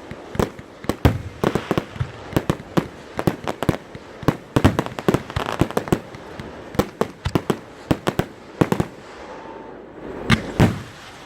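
Fireworks going off in a rapid, irregular string of sharp bangs and crackles, several a second, with a brief lull about nine seconds in, followed by a couple of louder bangs.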